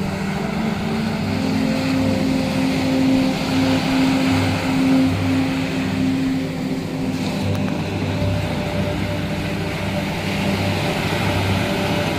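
Waves breaking and washing up a sandy beach, under slow background music of long held low notes that change pitch now and then.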